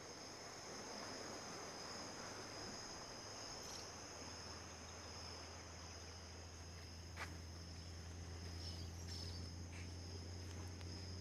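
Insects chirring steadily in a continuous high-pitched chorus, with a low steady hum coming in about four seconds in and growing louder, and a single click about seven seconds in.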